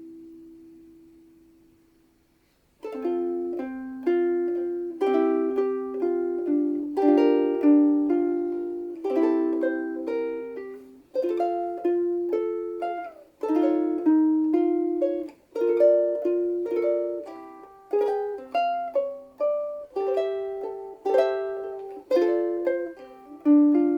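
Seilen vintage-style soprano ukulele with a Hawaiian koa body, played solo: a chord rings out and fades over the first two seconds, then after a short pause the playing resumes with a steady run of chords and melody notes.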